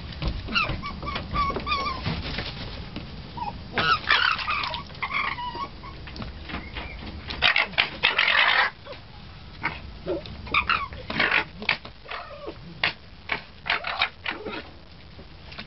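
Red fox cubs calling with high, wavering whines and squeals, with a harsh, noisy outburst about eight seconds in. Short sharp clicks and knocks follow through the rest.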